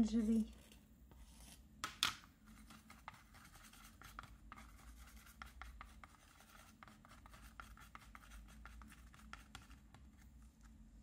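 Wooden stick scraping and stirring paint on a plastic palette: a long run of soft, quick scratching strokes, with one sharper tap about two seconds in. Red paint is being worked into yellow to mix orange.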